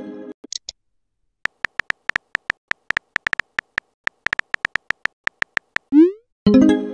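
Texting-app keyboard sound effect: irregular quick tonal ticks, several a second, one for each letter typed. Near the end, a rising swoosh and a synth chime mark the message being sent.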